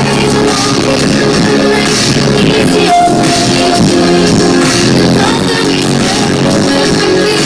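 Synth-pop band playing live: a female lead vocal over synthesizers and electric guitar, loud and continuous.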